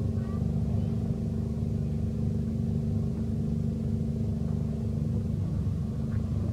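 Steady low engine drone with a constant hum over a fluttering rumble, unchanging throughout.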